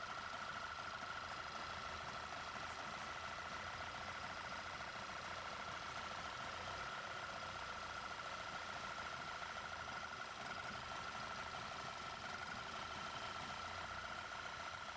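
Audi A3 engine idling steadily, with a constant high whistling tone over a faint hiss. The engine is drawing unmetered air through a leak at the oil separator, which the mechanic suspects has a damaged membrane.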